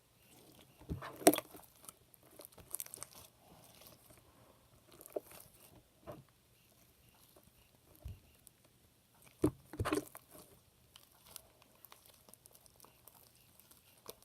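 Hands kneading and pulling sticky homemade clear slime: irregular squelches and sticky clicks, loudest about a second in and again near ten seconds.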